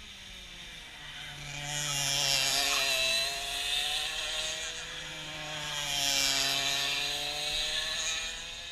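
Two racing karts pass one after the other on the nearby track, their two-stroke engines swelling and then fading as each goes by, the pitch shifting as they pass.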